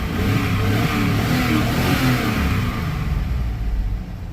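2002 Chevrolet Tahoe's V8 engine being revved, its pitch rising and then falling back toward idle near the end. It is running on the injector wiring just repaired after rodents chewed it, and it started right up.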